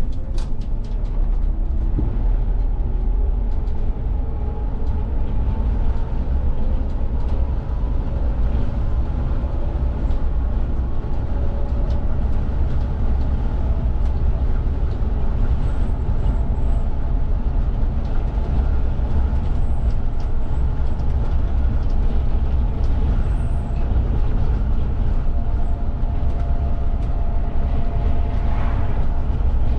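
VDL city bus driving along the road, heard from the driver's cab: a steady low rumble of engine and tyres, with a faint whine rising in pitch over the first ten seconds or so as the bus gathers speed.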